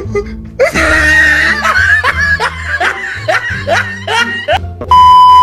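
A run of quick, high-pitched laughs, one short rising burst after another, followed near the end by a loud steady beep like a censor bleep.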